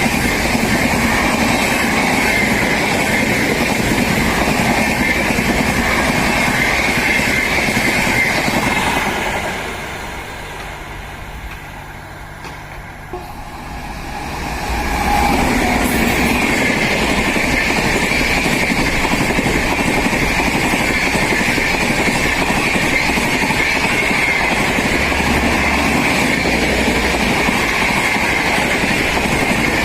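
Express train running through a station at high speed, its wheels on the rails making a loud, steady rush. The sound drops away about nine seconds in and swells back to full strength a few seconds later.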